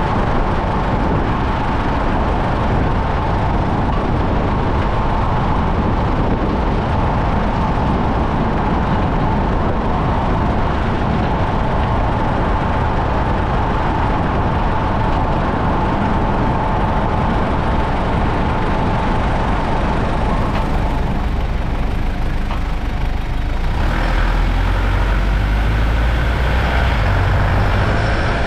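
Mitsubishi Pajero being driven: continuous road and running noise with a faint steady whine. The low rumble grows heavier near the end.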